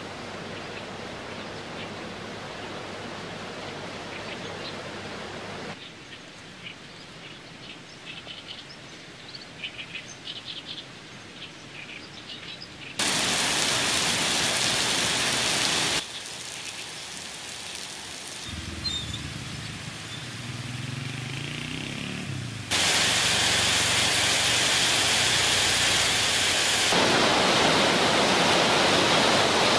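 Rain recordings joined by abrupt cuts: a steady rain hiss, then a quieter stretch with faint chirps. Heavy rain comes in suddenly about halfway through and cuts off a few seconds later, a low rumble follows, and the last several seconds hold a loud steady rush of water running off.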